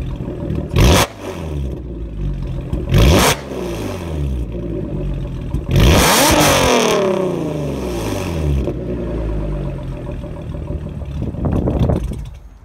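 Loud exhaust note of a 2011 B8 Audi S4's supercharged 3.0 V6 running through cat-delete downpipes and an Armytrix exhaust, revved while parked. Quick throttle blips come about one and three seconds in, then a bigger rev about six seconds in that falls back toward idle over a couple of seconds, and another rise near the end.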